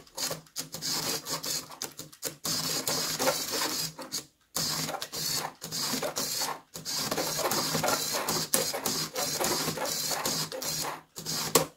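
Lego Technic walker mechanism running: a small electric motor driving plastic gears and linkages, a continuous mechanical whirring and rattling that breaks off briefly every second or two.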